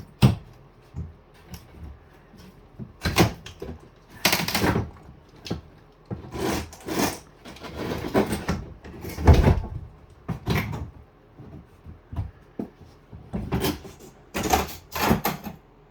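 Wooden 2x4 wall framing being pulled and knocked loose by hand: an irregular run of knocks, scrapes and thuds from the lumber, the loudest just after the start and about nine seconds in.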